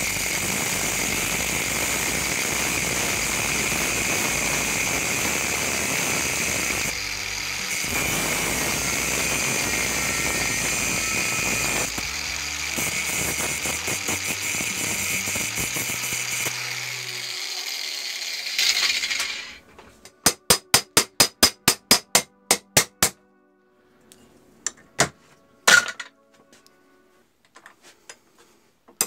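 Angle grinder disc cutting into the steel pivot pin of old rusty pliers, running steadily for about 19 seconds and then stopping. Then a hammer tapping a punch to drive the pin out: a quick run of about a dozen even taps, followed by a few slower, scattered ones.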